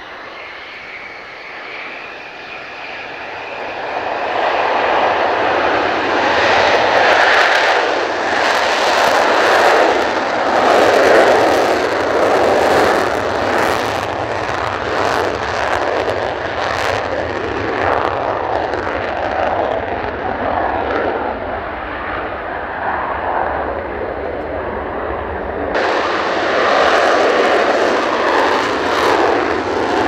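Mitsubishi F-2 fighter's F110 turbofan engine roaring as the jet rolls along the runway. The roar builds over the first few seconds and stays loud. About four seconds before the end it changes abruptly to a second F-2.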